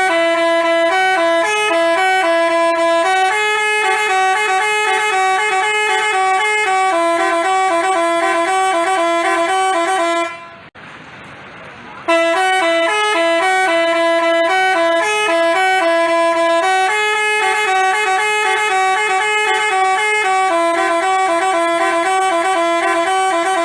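Telolet musical bus horn (Basuri type) playing a stepping multi-note tune; the tune runs about ten seconds, stops, and after a short pause plays again the same way.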